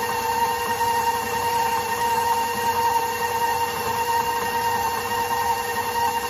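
Electric stand mixer running at a steady speed, its flat beater churning thick cookie dough in a stainless steel bowl; the motor gives a constant whine.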